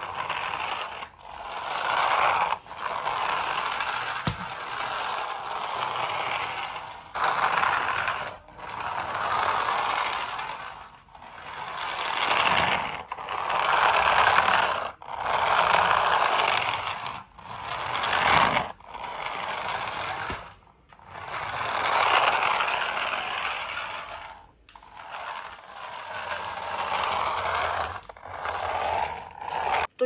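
Toy remote-control car's small electric motor and plastic gears whirring as it drives, in repeated runs of one to two seconds with short stops between.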